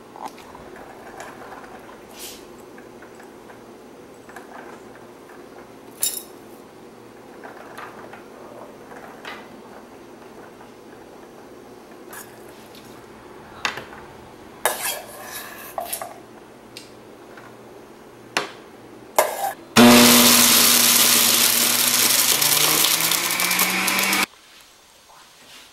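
Dishes and utensils clinking and knocking now and then, then about twenty seconds in an electric blender runs for about four and a half seconds, its motor pitch rising, blending pomegranate seeds for juice, and stops suddenly.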